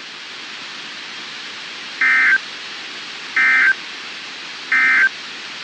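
NOAA Weather Radio end-of-message data code: three short, buzzy digital bursts a little over a second apart over steady radio hiss. This signals the end of the severe thunderstorm warning broadcast.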